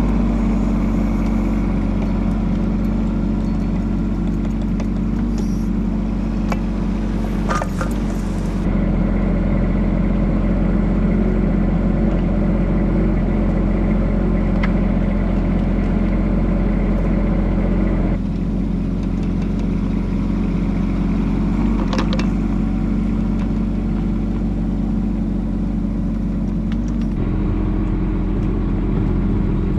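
Bobcat E10 mini excavator's small three-cylinder diesel engine running steadily under load while the machine tracks and digs, with a few knocks from the bucket and tracks.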